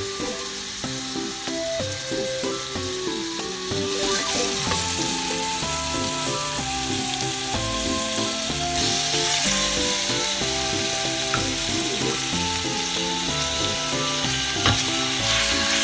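Ribs sizzling as they fry in a little hot oil in a stainless steel pot, a steady hiss that grows louder about four seconds in; a light sear of the meat. Background music plays underneath.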